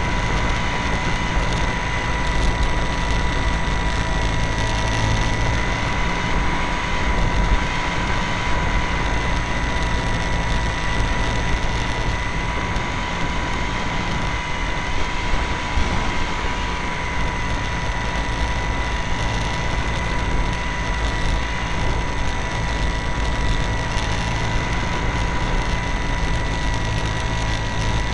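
A plane's motor and propeller running steadily in flight, heard from a camera mounted on the plane: an even, high whine over a heavy rush of wind noise.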